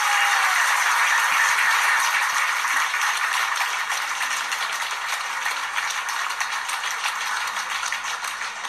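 Audience applauding after a live song, loudest at first and slowly dying down.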